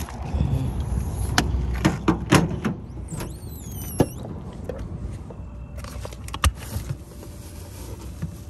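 Pickup truck door being opened by hand: a run of sharp clicks and knocks from the handle and latch, with a short squeal about three seconds in that ends in a latch click. A few more clicks follow as the portable fridge's lid is opened.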